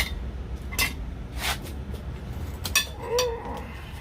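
Hand tools clinking against steel on the front brake assembly of a Prevost coach, with four or five sharp metallic clinks and a short scrape while 18mm caliper bracket bolts are being worked loose. A short pitched sound rises and falls about three seconds in.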